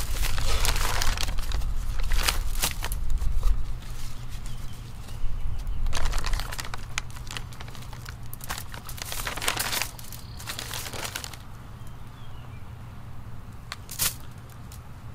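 Rustling and crinkling in several bursts, with a few sharp clicks among them and one near the end.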